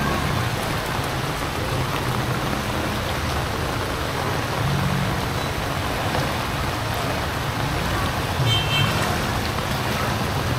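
Heavy rain pouring steadily, with the low hum of vehicle traffic underneath. A short, high tone sounds about eight and a half seconds in.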